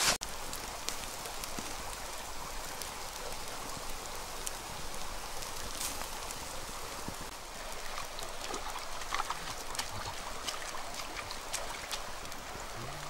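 Small stream running steadily, with scattered faint crackles from a wood campfire.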